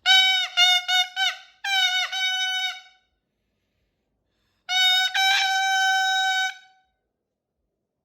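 Moluccan cockatoo making squeaky-toy-like calls: a quick run of short squeaks and a longer one, then after a pause of about two seconds one long held note.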